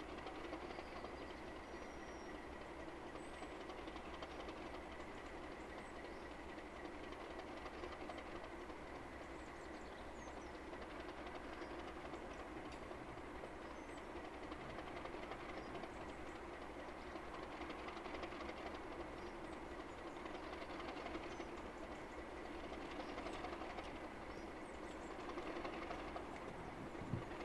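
Class 37 diesel-electric locomotives with English Electric V12 engines running steadily as the train approaches, a low drone with a thin steady high whine above it. It grows slightly louder in the second half.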